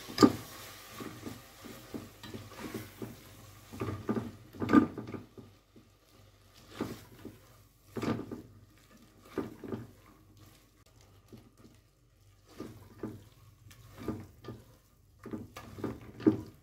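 A silicone spatula stirring chickpeas in a thick masala gravy in an aluminium pot, with irregular scrapes and knocks against the pot. The loudest knocks come just after the start, about five seconds in, and near the end.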